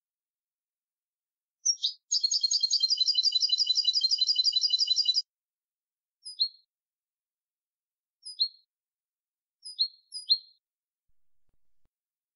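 European goldfinch singing: a single note, then a fast, even trill lasting about three seconds, followed by four short falling notes spaced one to two seconds apart, the last two close together.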